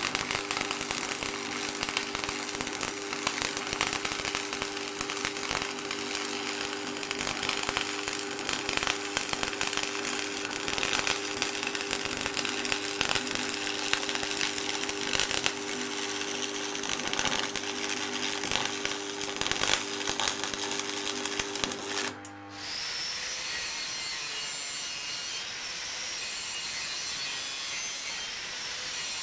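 A power tool running steadily, its motor hum under a rough grinding-cutting noise. About two-thirds of the way through it cuts off and gives way to a steadier rasping noise of work on wood.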